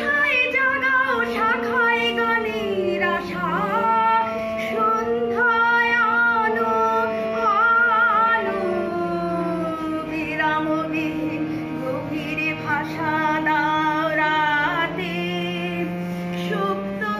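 A female voice singing a Bengali song, holding long, wavering notes and gliding between them, over steady sustained accompanying tones.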